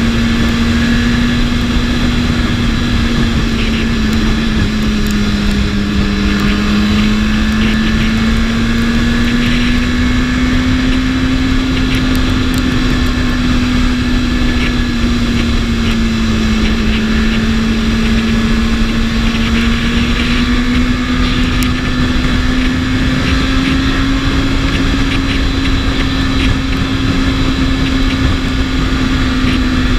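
BMW S1000RR's inline-four engine running at a steady cruise, its pitch drifting only slightly up and down, under a constant rush of wind and road noise.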